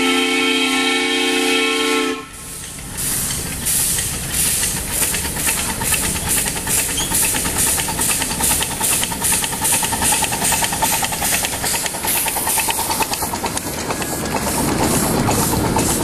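Live-steam scale model of the MONON 561 Mountain-type (4-8-2) steam locomotive blowing its steam whistle, several tones sounding together, for about two seconds. It then runs past with a quick, steady beat of exhaust chuffs over a hiss of steam.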